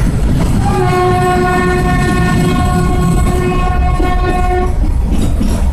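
Narrow-gauge toy train's horn blowing one long steady note for about four seconds over the loud, steady running rumble of the carriage. The note starts about a second in and stops near the end.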